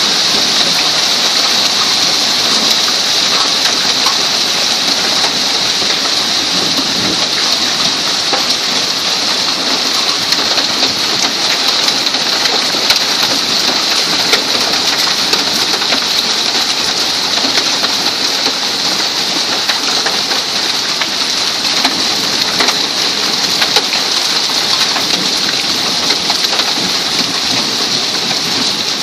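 Hailstorm: hail and rain pelting down steadily, a dense hiss full of fine ticks as the stones strike.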